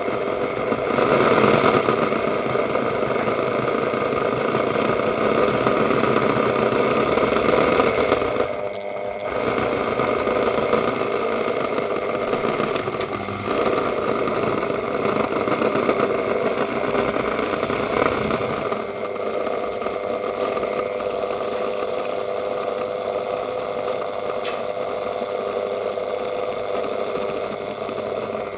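Electric rotary tool running at speed, driving a 3D-printed shaft-and-bearing drive that spins a small cutoff disc free, with no workpiece: a steady mechanical whine and rattle. It dips briefly about nine seconds in and runs a little quieter from about two-thirds of the way through.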